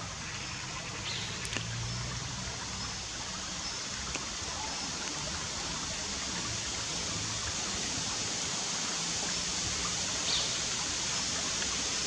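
Shallow river water running over stones: a steady, even rush, with a few faint brief ticks.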